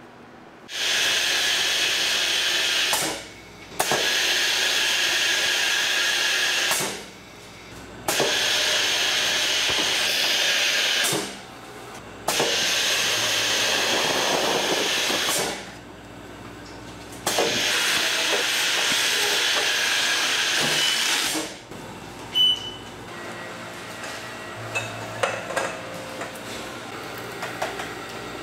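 Factory machine hissing in five bursts of two to four seconds each, with short breaks between. After the last burst a quieter steady machine sound carries on, with a few light clicks near the end.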